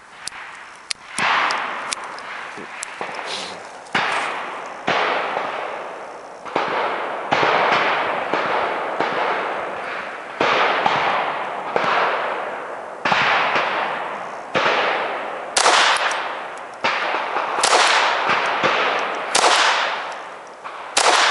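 A slow string of .22 LR pistol shots from a CZ 85 fitted with a CZ Kadet .22 LR conversion upper, about one a second. Each shot is a sharp crack with a long echoing tail.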